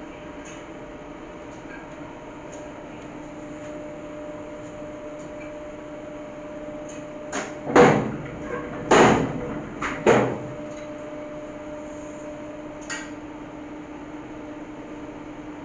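Label platen press running with a steady hum; about halfway through, its platen swings shut and back open with a cluster of loud metallic clanks and knocks lasting a couple of seconds, and a lighter knock follows a few seconds later.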